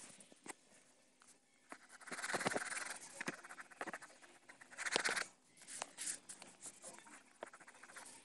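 Pencil scratching on paper close to the microphone, in short strokes with small taps, and two longer, louder stretches of scribbling about two and five seconds in.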